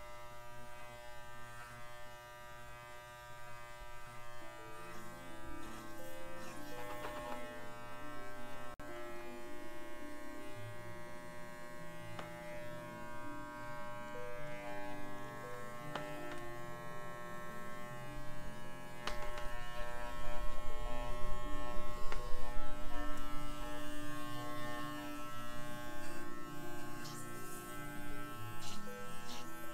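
Electric pet hair clippers running with a steady buzz, over a miniature schnauzer's coat.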